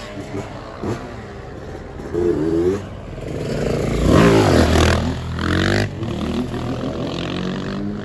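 Motor scooter engines revving, with pitch rising and falling. One is loudest about four seconds in, as if passing close.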